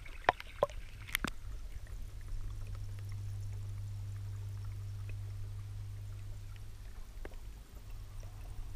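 Underwater sound in a garden pond: a few sharp clicks in the first second and a half, then a steady low hum that sets in about a second in and dies away near the end.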